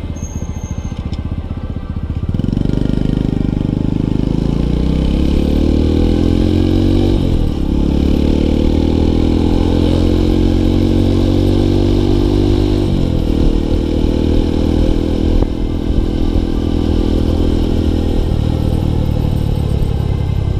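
Small motorcycle's engine accelerating through the gears. The engine note climbs from about two seconds in, drops at a gear change about seven seconds in, climbs again, drops at another shift around thirteen seconds, and eases off about eighteen seconds in.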